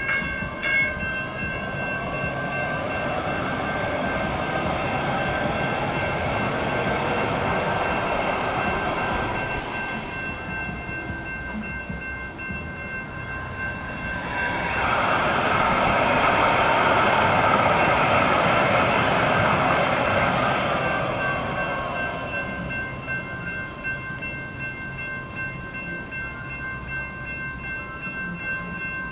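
Railroad crossing warning bells ringing steadily while a train passes through the crossing. The rushing rail noise swells twice, once a few seconds in and again, louder, around the middle, then fades.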